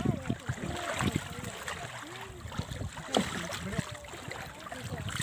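Water lapping and sloshing against the hull of a rowing boat, with small gurgles and scattered splashes, one sharper splash about three seconds in.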